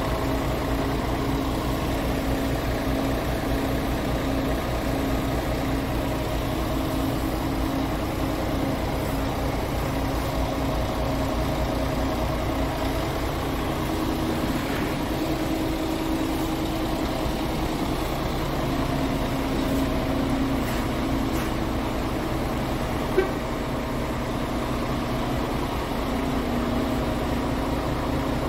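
Scania R tractor unit's diesel engine idling steadily, with a single sharp click late on.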